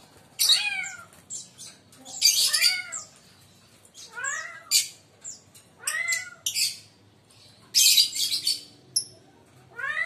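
Lovebirds calling: short, shrill, high-pitched shrieks, loudest about two seconds in and again near eight seconds, interleaved with repeated rising-then-falling meow-like calls.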